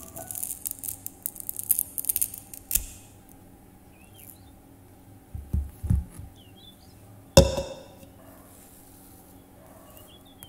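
Crackling and rustling as a banana is broken off the bunch, then soft thumps of bananas set down on a wooden tabletop. About seven seconds in comes a single sharp clink with a short ring, a blender jar set down. Faint bird chirps sound in the background.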